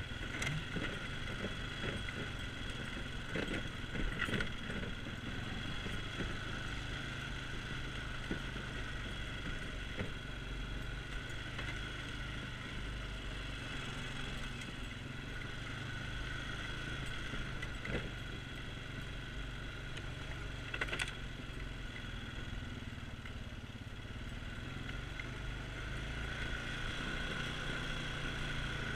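ATV engine running steadily as the quad rides over a rough dirt trail, with a few knocks and rattles from the machine jolting over bumps.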